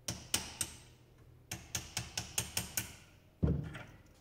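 Hammer striking metal: three sharp knocks, then a quick run of about eight lighter taps, knocking loose the cone pressed into a bearing puller's expanding collet. A heavy dull thud follows about three and a half seconds in.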